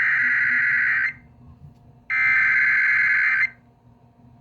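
Emergency Alert System SAME header over a radio broadcast: bursts of buzzy digital data tones, each about a second and a half long, separated by about a second of quiet. The first burst is sounding at the start, the second comes about two seconds in, and the third starts near the end. The header opens an emergency alert.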